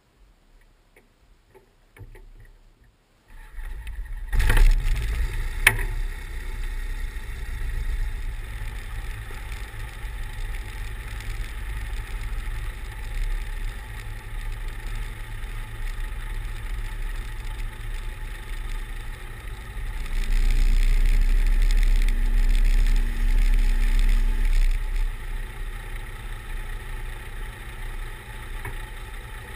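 Pipistrel Virus SW 100 light aircraft's Rotax 912 four-cylinder engine starting after a few faint clicks, then running steadily as the plane taxis. About two-thirds of the way through the power comes up and holds for about five seconds, with a steady hum, then eases back.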